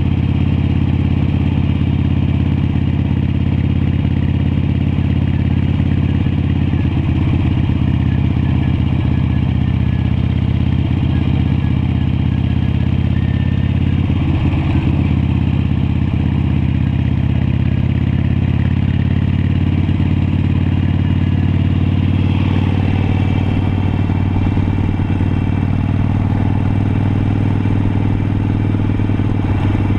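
Harley-Davidson Iron 883's air-cooled V-twin engine running steadily at cruising speed, heard from on board the moving motorcycle.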